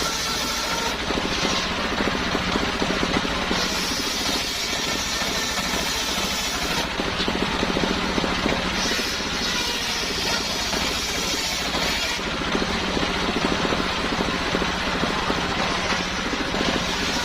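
Homemade engine-driven circular saw running while sawing salam wood, a steady engine drone with a hiss in the upper range that drops away and comes back every few seconds.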